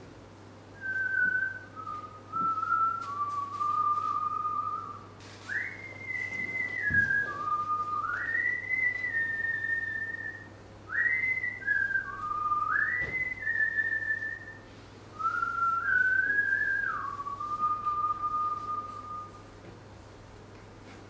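A person whistling a slow melody: one clear line of held notes, stepping between pitches with a few quick upward slides, stopping shortly before the end.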